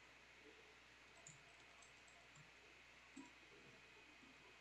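Near silence with a few faint, scattered clicks of typing on a computer keyboard.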